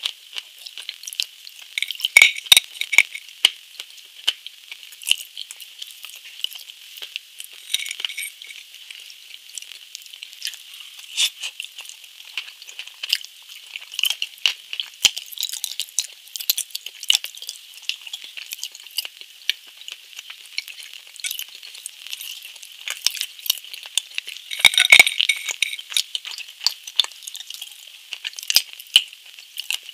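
Close-miked eating sounds: crackly bites and chewing of a flaky coated food, a steady patter of small crisp clicks and crunches, with louder crunching about two seconds in and again near twenty-five seconds.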